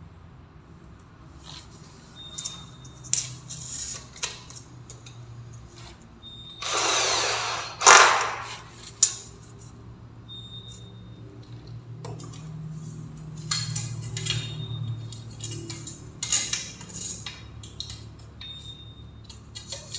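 Cordless drill run in one short burst of about a second, then two sharp knocks, amid scattered clicks and handling knocks of tools and an aluminium LED-strip channel being fitted to a stair.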